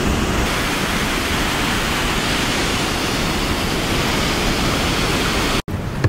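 Brúarfoss waterfall's water rushing, a steady even wash of noise, broken off for an instant near the end.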